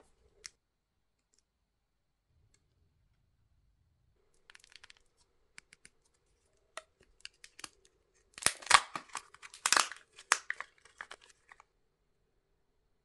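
The wrapper of a small King Egg surprise egg being torn and crinkled off by hand. It is a run of crackly rustles that grows into louder tearing bursts about two-thirds of the way through, then stops.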